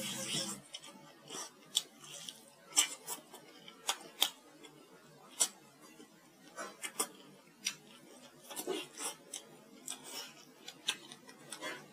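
Close-miked eating sounds: lips smacking and sucking meat off a stewed pork rib bone, heard as irregular sharp wet clicks and smacks.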